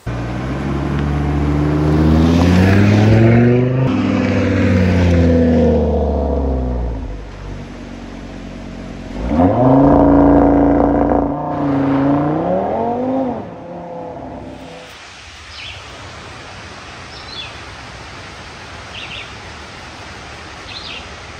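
A car engine accelerating, its pitch climbing with a break about four seconds in and then falling away. A second rev climbs sharply and falls off between about nine and thirteen seconds in. After that comes a steady rushing noise with a few faint short high chirps.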